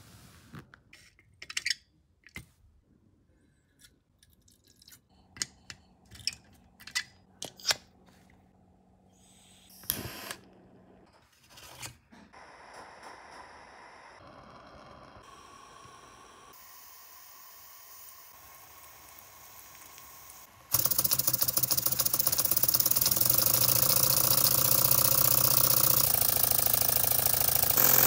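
Small metallic clicks and taps from the parts of a miniature steam engine model, then a faint steady hiss from the burner flame under its boiler. About two-thirds through, the engine starts running loudly with a fast, even chuffing and steam blowing off.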